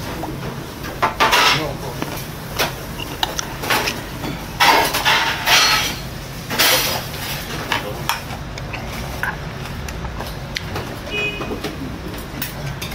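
Spoon and chopsticks clicking against bowls and dishes while a man eats, with short bursts of eating noise. A steady low hum runs underneath.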